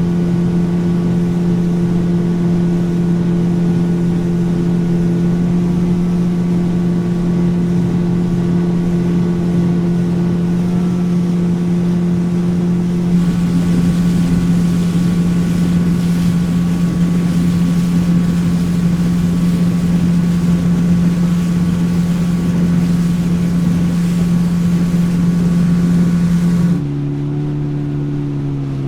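Motorboat engine running steadily at speed, with a rush of water and wind over it that grows louder about halfway through. Near the end the engine note drops and it gets quieter as the throttle is eased.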